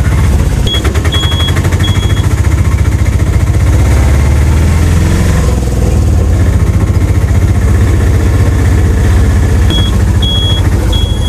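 A car's engine running with a steady low rumble. Short high beeps about twice a second sound briefly near the start and again near the end: a reversing alarm, as the vehicle pulls into a parking area.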